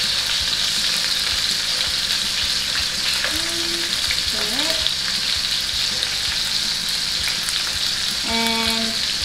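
Beef short ribs sizzling steadily as they sear in hot oil in a nonstick frying pan, with small clicks of metal tongs turning the pieces.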